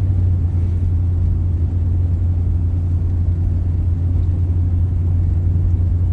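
Steady low rumble of a van driving at an even speed, heard from inside the cabin: engine drone and tyre noise with no change in pace.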